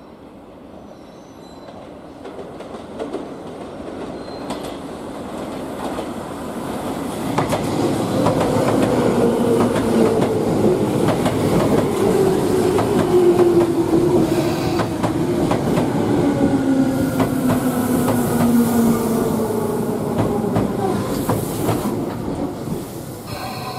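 Tobu commuter electric train running into the station past the camera: its rumble grows over the first several seconds, the wheels clatter over the rail joints and points, and a whine falls slowly in pitch as it slows.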